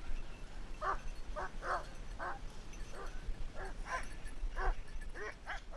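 Hunting dog barking in a quick string of short yelps, about two a second, on a wild boar hunt.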